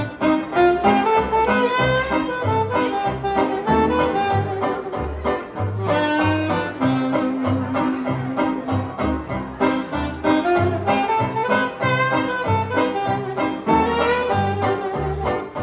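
A small hot-jazz band playing live in a swing rhythm: a wind instrument with vibrato leads the tune over a low bass note on every beat and a strummed banjo.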